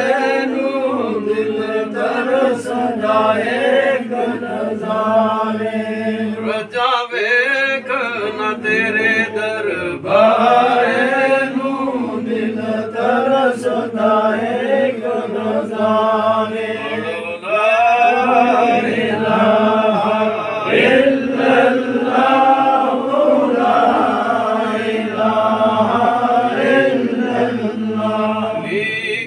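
Men's voices chanting a devotional zikr together, a continuous melodic chant that runs without a break.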